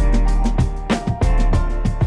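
Background music: a track with a steady drum beat over a deep, sustained bass and pitched instrument notes.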